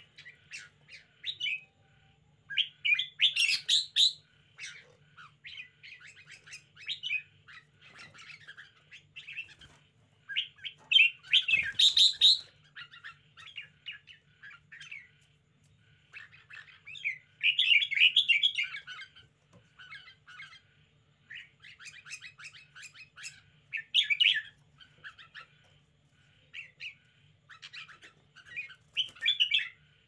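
Caged red-whiskered bulbul singing in quick chattering phrases of bright chirps, one burst every second or two, with several louder outbursts along the way.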